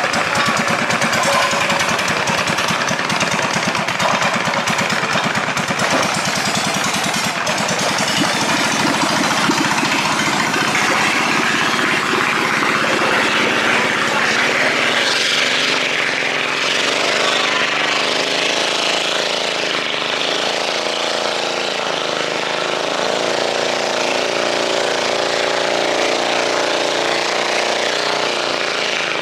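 Thai longtail boat engines running loudly with a rapid, unmuffled beat as the boats get under way, the engine note growing steadier about halfway through.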